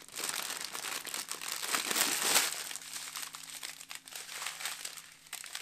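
Thin plastic packaging crinkling as a bag and a strip of small sealed packets of diamond-painting drills are handled and unfolded, busiest for the first couple of seconds and lighter after.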